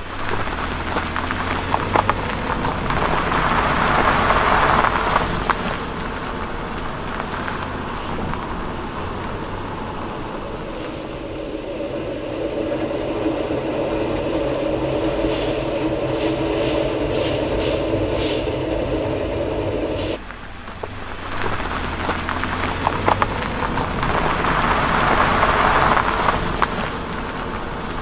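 Automatic car wash sound effect: a steady low machine hum under the rushing, swishing noise of spraying water and turning brushes, which swells and fades twice. It breaks off sharply about twenty seconds in and starts again.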